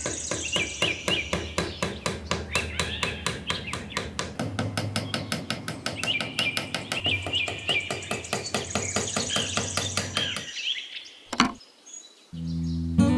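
Small hammer tapping a thin wooden stick down into sand, quick light taps at several a second, with birds chirping behind. The tapping stops about ten seconds in; a single sharp knock follows, then music starts near the end.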